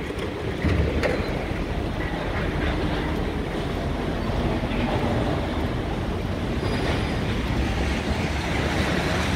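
Steady rumble and clatter of heavy scrapyard machinery, with a few faint held tones over it.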